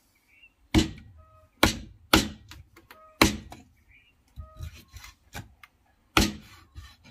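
A heavy knife chopping chicken on a wooden stump chopping block: five hard, unevenly spaced chops, with a few lighter taps in between.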